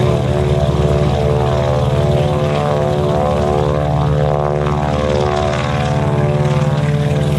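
Twin radial engines of a Beechcraft 18, a former AT-11 bombardier trainer, running steadily as the propeller plane rolls along the runway. The drone is loud and even, with a shifting, swirling pitch pattern as it moves past.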